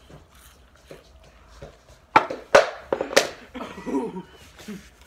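Quiet crunching of spicy chips, then a man coughs hard three times in quick succession about two seconds in, set off by the chili-coated chips, followed by a short strained vocal sound.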